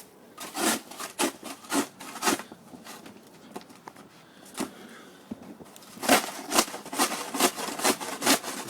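Repeated short crunching scrapes in snow, roughly two a second. They stop for a few seconds partway through, then resume faster and louder.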